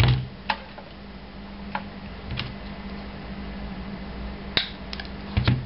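Side cutters snipping through thin solenoid feed wires: a series of sharp clicks, with a couple of dull handling knocks at the start and near the end, over a steady low hum.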